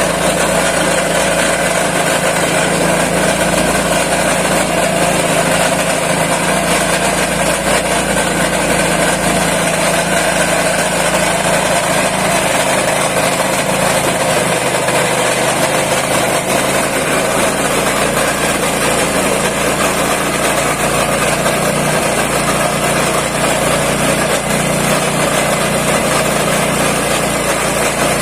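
Wet coffee grinding machine running steadily, a constant loud mechanical drone.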